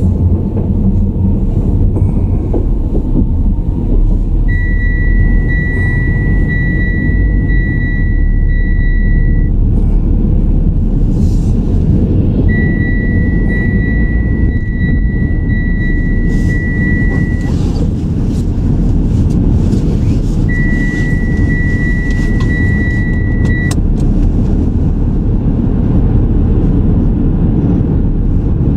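Steady low rumble of road and engine noise from a car driving, heard from inside the vehicle. A steady high electronic tone sounds three times, each lasting a few seconds.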